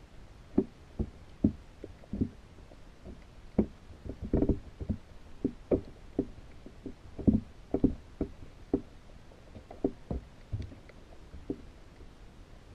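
Irregular underwater knocks and taps, each ringing briefly, heard through a GoPro housing inside a baited fish trap, with a quick flurry about four seconds in and another about seven seconds in.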